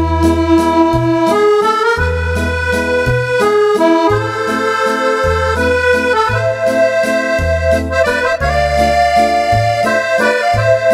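Roland FR-8x digital accordion playing a right-hand melody over a steady left-hand accompaniment of bass notes alternating with short chords.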